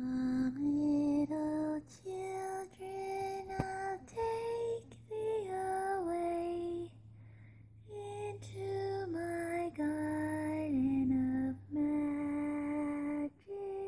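A woman singing a slow, lullaby-like melody in long held notes over a low steady hum, with a short break about halfway through.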